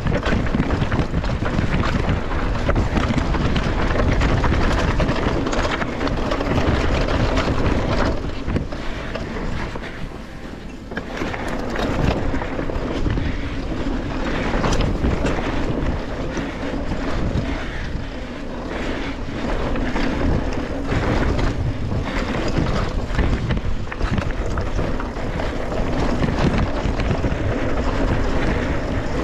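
Downhill mountain bike descending a rough rocky trail: tyres rolling over rock and gravel, with the bike rattling and knocking over the bumps and wind buffeting the camera microphone. It eases briefly about ten seconds in.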